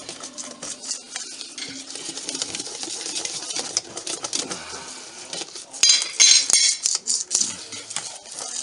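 Wire whisk beating sourdough pancake batter in a stainless steel bowl, a rapid run of clicks and scrapes as the wires hit the bowl's sides, with a louder, brighter rattle about six seconds in. The whisking mixes extra flour into the thin batter to thicken it.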